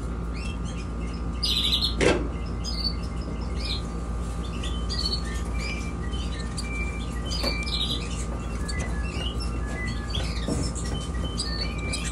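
Young canaries chirping, many short high call notes scattered throughout over a steady background hum. A sharp knock about two seconds in.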